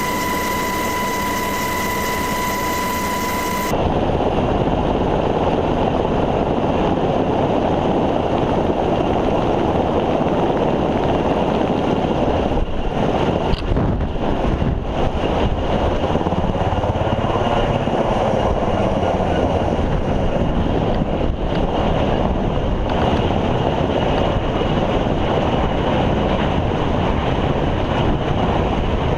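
Helicopter rotor and engine noise mixed with heavy wind on the microphone, with a slow sweep in tone about halfway through as the aircraft passes. A steady high electronic tone sounds over it for about the first four seconds, then stops suddenly.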